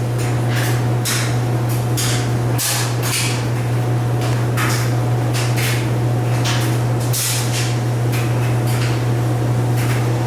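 Hunter Low Profile ceiling fan running: a steady low hum with irregular airy swishes about once or twice a second.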